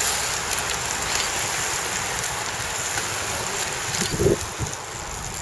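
Wind rushing over the microphone of a camera on a racing bicycle moving at speed in a bunch. It gives a steady rushing noise with a few faint clicks, and a short voice-like sound about four seconds in.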